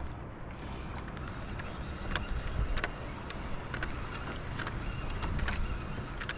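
Water lapping at a fishing kayak's plastic hull with a steady low rumble of wind on the microphone, and sharp short ticks at irregular intervals, about one a second.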